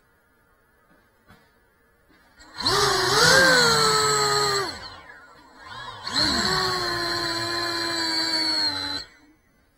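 Small FPV drone's brushless motors spinning up twice, each time for about two to three seconds. The whine rises in pitch, then holds steady before cutting off, with the drone resting on a tiled floor.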